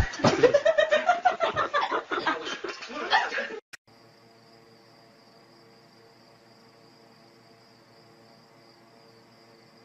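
Lively human voices with quick, loud pulses, cut off abruptly about three and a half seconds in. After that, a faint steady high-pitched whine over a low hum.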